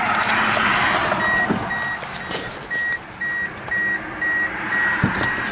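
2003 Toyota Corolla's warning chime beeping steadily, about two short identical beeps a second, starting about a second in, over a steady background noise.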